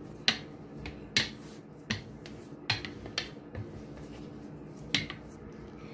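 Plastic rolling pin rolling out yeast dough on a hard stone countertop: about six sharp clicks and knocks at irregular intervals as the pin is worked back and forth.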